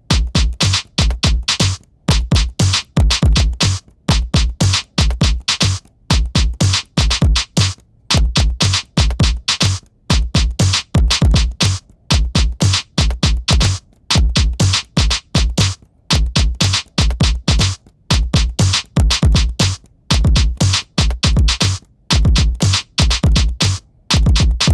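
Electronic drum-machine beat looping: kick drum, snare and hi-hat in a one-bar pattern that repeats every two seconds.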